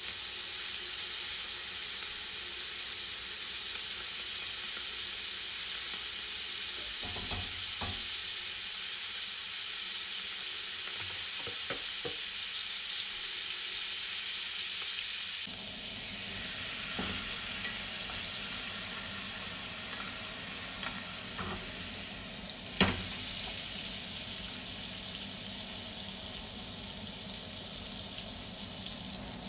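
Beef steak frying in foaming butter in a cast-iron skillet: a steady sizzling hiss, with a few scattered pops and one sharp tap about three-quarters of the way through.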